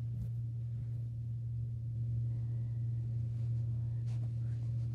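Steady low hum, with a couple of faint soft clicks and rustles of fabric against the microphone.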